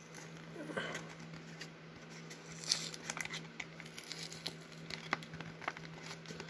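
Faint crinkling of a foil trading-card pack wrapper and cards being handled, with scattered light clicks and taps.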